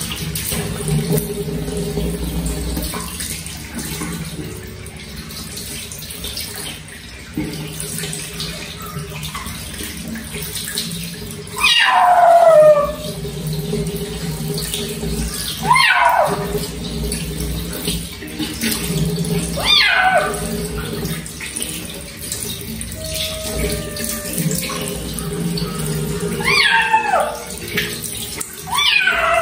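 Kitten meowing about six times, each cry falling in pitch, the first about a third of the way in being the loudest, two close together near the end, while it is bathed. Running tap water splashes steadily under the cries.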